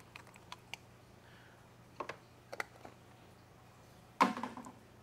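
Plastic specimen cups with screw-on lids being handled: small clicks and taps of the lids and cups, then a louder plastic clatter about four seconds in as a cup is pulled from among the others.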